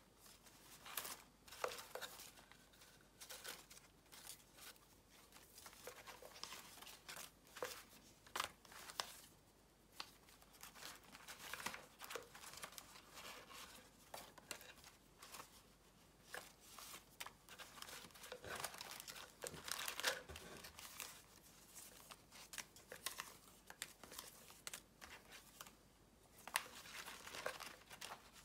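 Paper rustling and crinkling in short, irregular bursts with occasional sharper taps, as hands leaf through the pages of a handmade junk journal and shuffle loose paper pieces.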